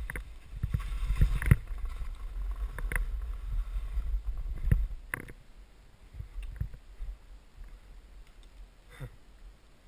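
Skis swishing through deep powder snow, with wind rumbling on the microphone and a few sharp knocks. The swish and rumble are loudest in the first half and die down after about five seconds.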